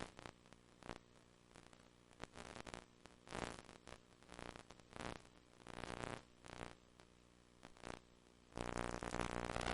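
VHS HiFi audio buzzing noise: a steady low buzz with many even overtones, broken by irregular bursts of noise that come and go. The bursts become denser and louder near the end.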